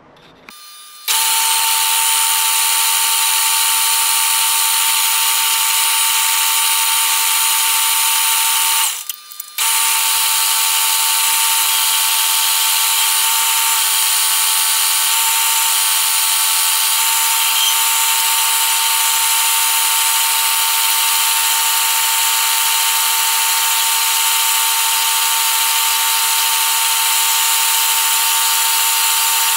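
Metal lathe running while turning a small brass-coloured spacer: a steady, high machine whine with a constant note. It drops out briefly about nine seconds in, then carries on.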